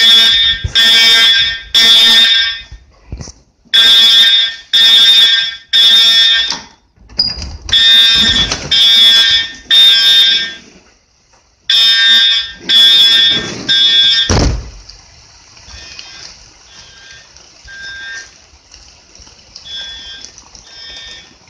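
Edwards 7577ATW EST Integrity horn strobe sounding a temporal-3 evacuation pattern: three half-second blasts, a pause, then three more, repeating. About fourteen seconds in there is a thump, and after it the horn is heard only faintly, still pulsing.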